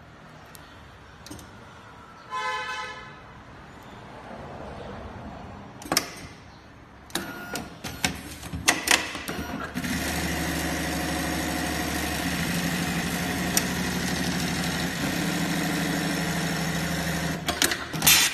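Automatic bra sewing machine: a short electronic beep about two seconds in, a run of sharp clicks and knocks as the work piece is clamped, then the machine sewing steadily at speed for about eight seconds before stopping, followed by a few clicks near the end.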